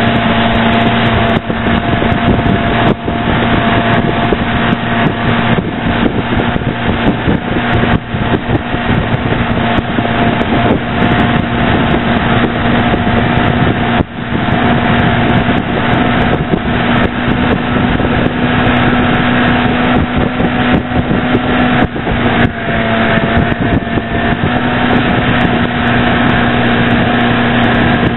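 Tow boat's engine running steadily at speed, a constant drone, with wind buffeting the microphone.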